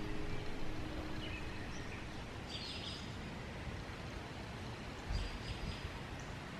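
Outdoor ambience: a steady low background noise with a few faint bird chirps scattered through it.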